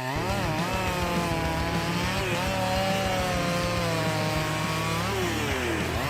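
Chainsaw cutting wood at high revs. Its engine pitch dips under load about half a second in and again near the end, with a slow sag in between.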